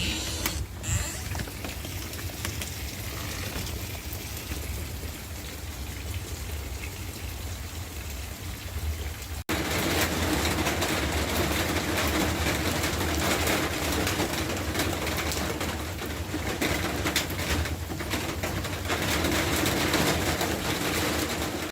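Steady rain falling, an even hiss of drops. It cuts off abruptly about nine and a half seconds in, and a louder stretch of rain follows.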